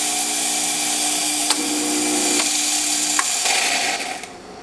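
Steam wand of a Quickmill Silvano espresso machine hissing strongly and steadily, with a few small clicks; the steam dies away near the end.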